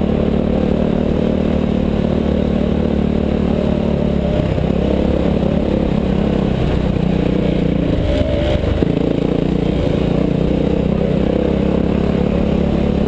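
Enduro dirt bike engines running under way on a gravel trail, with wind and rattle noise over an onboard camera. The engine note drops about four seconds in and shifts again around eight to nine seconds, with a brief clatter.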